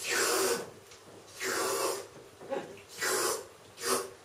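A man slurping with his mouth to imitate eating soba noodles: four noisy slurps, each shorter than the one before, with short pauses between.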